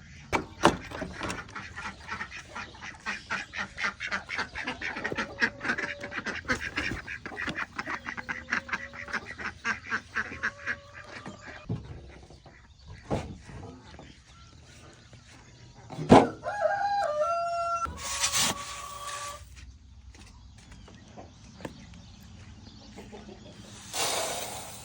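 Ducks and chickens calling: a fast run of short clucks and quacks for the first twelve seconds or so, then quieter. About sixteen seconds in comes a sharp knock, followed by a few louder drawn-out calls.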